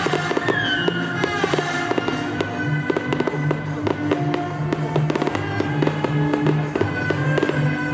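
Fireworks going off in rapid, irregular bangs and crackles over loud accompanying music with sustained notes.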